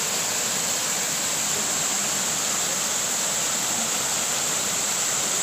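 Small waterfall rushing steadily down rock into a pool: an even, unbroken water noise.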